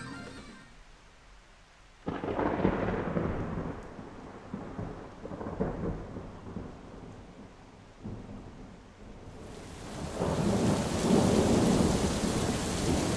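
Thunder during a heavy thunderstorm: a sudden crack about two seconds in that rumbles away, more rolls of thunder after it, and then a steady rain hiss that grows louder near the end.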